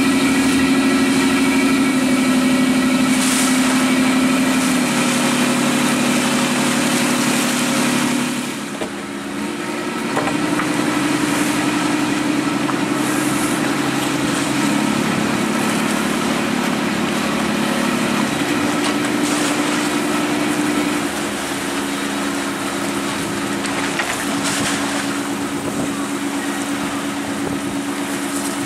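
Boat engine running, its pitch stepping up and down every few seconds as the throttle changes, with wind and water noise over it.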